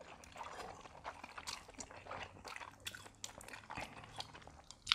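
People eating noodles and crab meat: irregular wet chewing and mouth smacks with small clicks, and one sharper click near the end.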